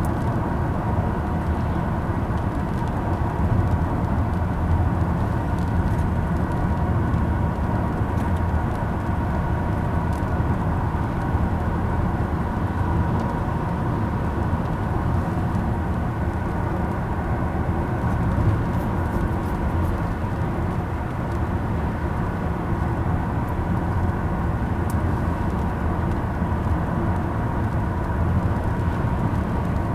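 Steady road and engine noise of a moving car, heard from inside the cabin, with a faint steady hum.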